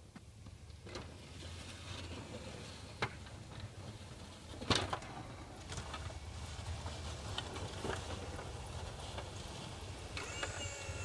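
1996 GMC Z71 pickup's engine running with a steady low rumble, with several sharp knocks and clunks over it, the loudest about halfway through. Near the end a high, steady tone of several pitches sets in.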